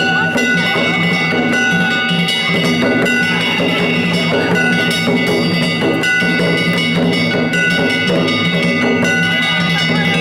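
Danjiri festival music played on the float: drums beaten in a steady, driving rhythm with small metal gongs clanging and ringing over them.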